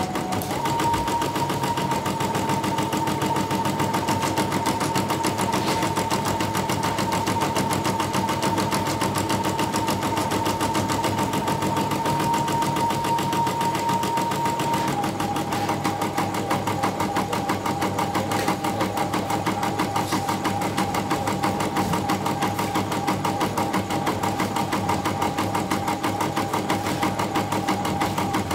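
YOKO embroidery machine running, its needle stitching in a fast, even rhythm over a steady motor whine that steps down slightly in pitch about halfway through.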